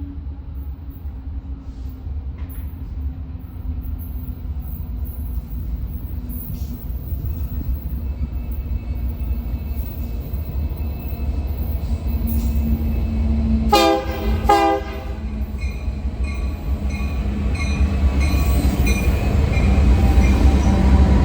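Train's low rumble building steadily louder as it approaches, with two short blasts of a locomotive's chime horn about fourteen seconds in.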